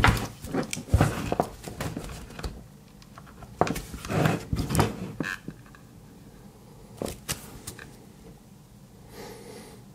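Handling noise from a metal-cased DC watt meter and its XT60-connector power leads on a desk: a run of small clicks and knocks in the first few seconds, a few more about halfway, two clicks near seven seconds and a soft rustle near the end.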